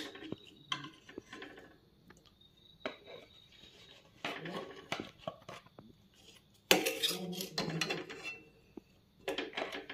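A metal spoon scraping and clinking against an aluminium kadai and knocking on a plastic jar as sticky pickle is ladled across, in several short bursts of clatter with pauses between. The busiest burst is about seven seconds in.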